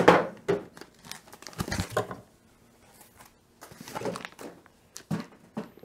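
White foam packing end caps being pulled off a small boxed NAS unit and handled: scattered rustles and knocks, the loudest right at the start, with a pause of about a second and a half in the middle.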